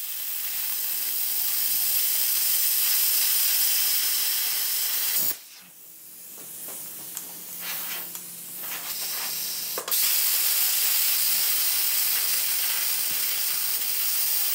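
Hypertherm Powermax 30 plasma cutter cutting quarter-inch steel: a loud, steady hiss of the arc and air. It stops about five seconds in, then a second cut starts suddenly near the ten-second mark.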